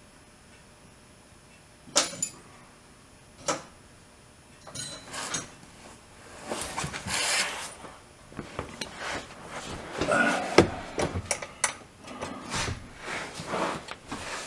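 Hand tools being handled, with metal clinking and rustling clatter. Two sharp clicks about two seconds in and a second and a half later, then a busier run of clinks and rattles.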